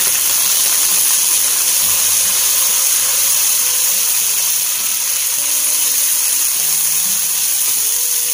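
Blended onion, ginger and garlic paste sizzling steadily in hot oil in a wok as it is sautéed.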